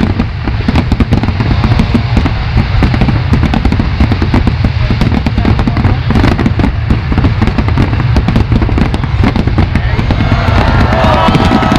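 Fireworks display: a dense run of rapid bangs and crackles over a constant deep rumble, with some wavering tones coming in near the end.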